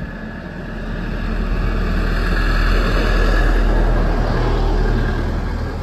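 Motor-vehicle engine and road noise while riding a scooter. It swells to a peak around the middle and eases off towards the end.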